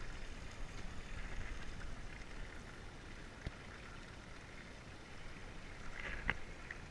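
Water sloshing against the hull of a small open fishing boat, over a steady low rumble; a single sharp knock about halfway through.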